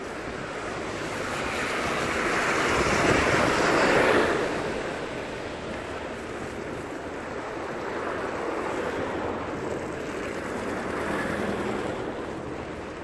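Road traffic passing on a wet, slushy street: tyre hiss swells to a peak about four seconds in and fades away, then a smaller swell comes near the end.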